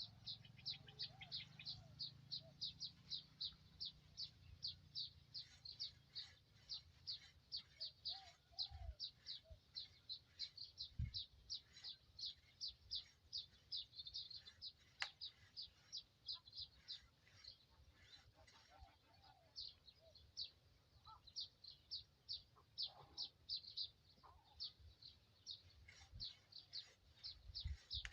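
Faint, steady run of short high-pitched chirps, about three a second, from a small creature calling outdoors, with a couple of soft thumps.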